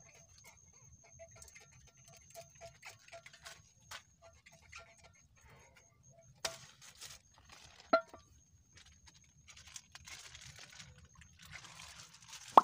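A lump of thrown bait plops into open water about eight seconds in, the loudest sound here, among faint scattered ticks and rustling.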